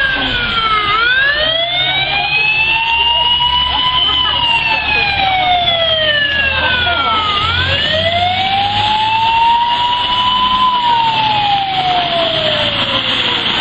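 Fire truck siren on a slow wail, rising and falling twice, with a steady low rumble beneath it.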